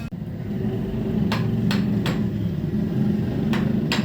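Hammer blows: three sharp knocks about a third of a second apart, then two more near the end, over a steady low hum.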